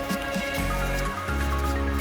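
Background music with a steady bass line and held notes.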